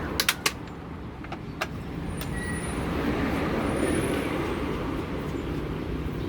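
Steady road-traffic noise, with a few sharp clicks in the first second and a half as the washing machine's plastic top panel is handled.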